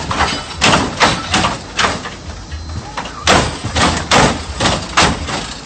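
Hydraulic lowrider hopping its front end: a run of sharp slams and clanks, about three a second, with a short break a little before halfway.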